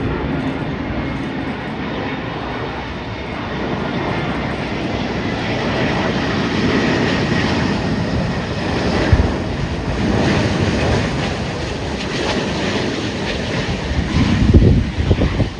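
Airbus A350-900's Rolls-Royce Trent XWB jet engines during landing: a steady, loud jet roar that swells through the middle and then eases. A low rumble of wind on the microphone comes in near the end.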